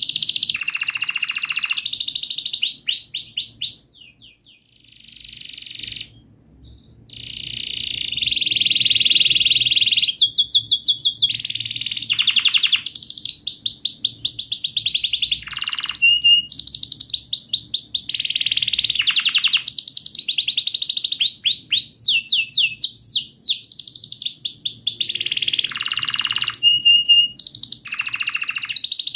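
Domestic canary singing a long, continuous song of fast trills and rolling chirps, dropping briefly quieter about four seconds in before the trills resume.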